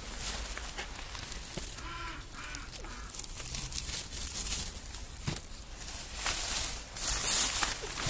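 Straw bedding rustling in repeated bursts as piglets move against a lying sow, with a short high-pitched call about two seconds in.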